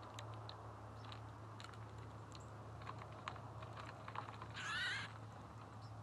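Scattered light clicks and taps of birds at a sunflower-seed feeder, with a short wavering, buzzy bird call about four and a half seconds in, over a steady low hum.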